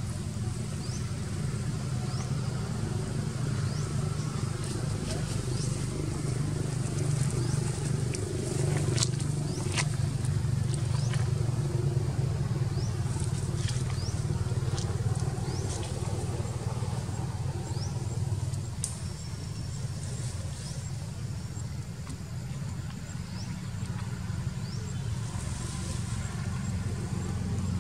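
A steady low engine hum, with faint short high chirps scattered through it and a few sharp clicks about nine to ten seconds in.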